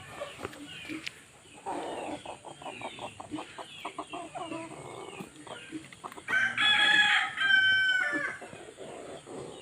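Chickens clucking and chirping, with a rapid run of clucks about two seconds in; a rooster crows loudly for about two seconds near the end.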